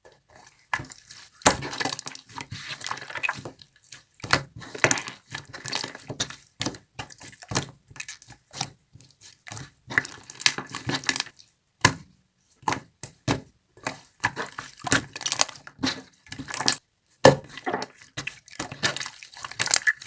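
Translucent jelly slime being squished and worked by hand: irregular wet squelches, sticky clicks and small pops, with a few short pauses.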